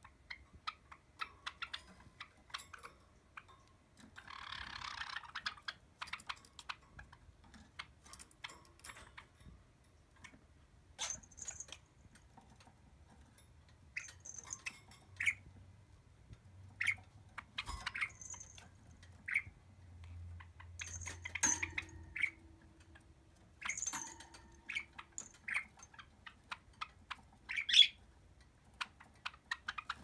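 Caged Java sparrows and a budgerigar giving short, sharp chirps now and then, among small clicks and taps. There is a burst of rustling about four seconds in.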